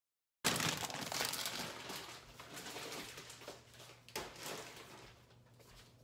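Plastic bag of soy wax flakes rustling and crinkling as it is handled over the pouring pitcher, starting abruptly about half a second in and fading away over several seconds, with a sharp click about four seconds in.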